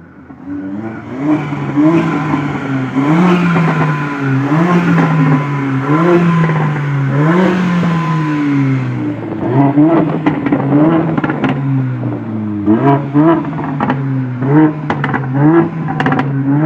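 Mercedes A45 AMG's turbocharged 2.0-litre four-cylinder revved repeatedly, about once a second, with a turbo whistle through its custom induction kit. From about halfway, quicker blips of the throttle bring sharp crackles and pops from the exhaust.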